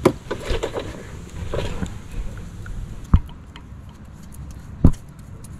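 A metal tool clicking and scraping against a brake caliper bracket while brake grease is spread on, with three sharp clicks: one at the start, one about three seconds in and one near the end. A low steady hum runs underneath.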